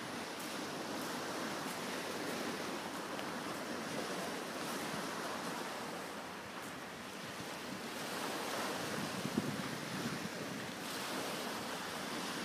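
Small waves breaking and washing over a shingle beach in a steady surf hiss, with some wind on the microphone.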